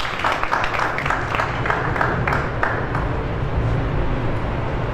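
Audience clapping, thinning out after about three seconds, over a steady low hum.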